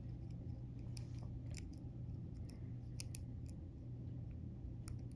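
Scattered small metallic clicks and ticks of a dimple pick working the pins inside an Ultion dimple cylinder lock under tension, over a steady low hum.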